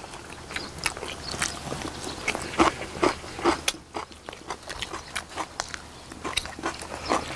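Close-up chewing and biting of people eating boiled pigs' feet (jokbal): a run of irregular wet smacks and clicks, busiest a few seconds in.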